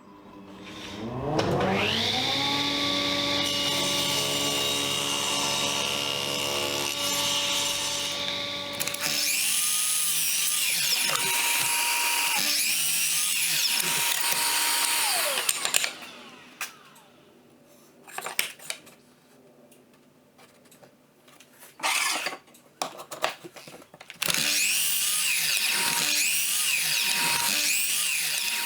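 An electric power tool's motor spins up about a second in and runs steadily, then takes up load with its pitch sagging and recovering; it stops after about sixteen seconds. A few knocks follow, and near twenty-four seconds the tool starts again, its pitch dipping repeatedly under load.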